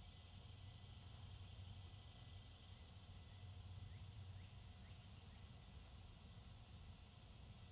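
Faint, steady, high-pitched chorus of insects in the trees, a little louder through the middle, over a low steady hum.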